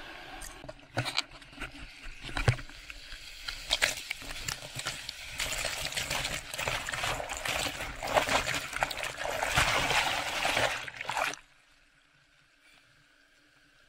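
Ocean surf churning and splashing over a waterproof-cased camera as it is carried through a breaking wave: a dense fizzing hiss with sharp knocks and splats, heaviest in the second half. About eleven seconds in it cuts off abruptly, leaving near quiet.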